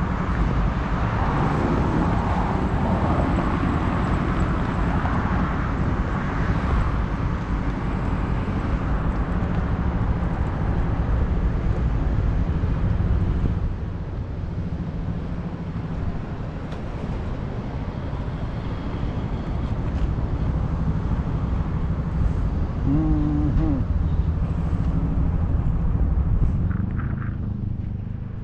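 Wind rushing over a bike-mounted camera's microphone while riding, mixed with road traffic going by; it eases about halfway through, and a short tone sounds about three quarters of the way in.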